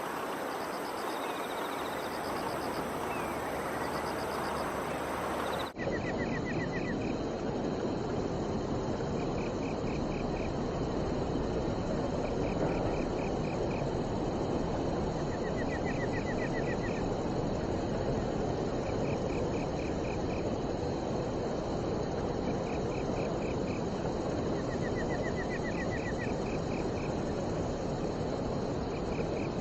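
Crickets chirping in short pulsed trills at two pitches, repeating every few seconds over a steady outdoor rush of noise. The sound changes abruptly about six seconds in, and the trills are lower and more spaced after that.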